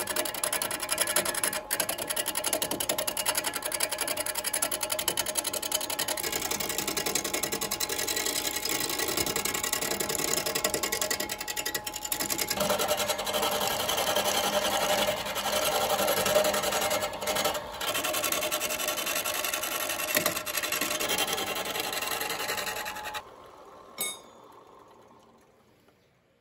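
Wood lathe spinning a large wooden stump blank while a hand-held turning tool cuts into it: a steady mechanical hum under a dense scraping of tool on wood. About 23 seconds in, the cutting noise stops abruptly, a single click follows, and the lathe runs down to near quiet.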